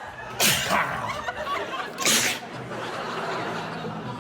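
A man sneezing loudly twice, about a second and a half apart, followed by laughter.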